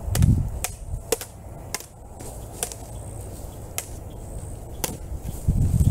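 Prop swords clacking against each other in a duel, about eight sharp clacks at uneven intervals, with low rumbles near the start and near the end.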